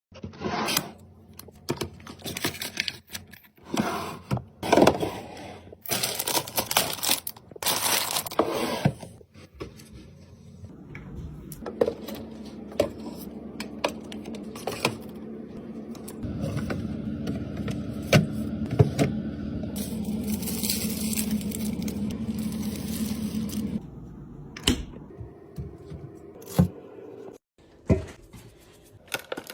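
Restocking handling noises: packaging and containers clicking, rustling and being set down in quick succession. Midway a steady mechanical hum runs for about fourteen seconds, then stops, and scattered clicks follow.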